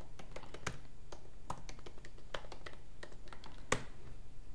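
Typing on a computer keyboard: irregular key presses, about three a second, with one louder keystroke near the end.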